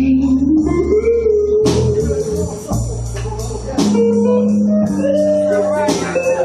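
Slow blues from a live band: a pedal steel guitar holds long notes and slides up in pitch, over a bass line, with a drum or cymbal hit about every two seconds.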